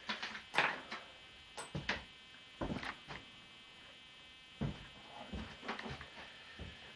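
Hand tools working on a motorcycle's front end: a scatter of short metallic clicks and knocks from spanners and parts, over a faint steady hum.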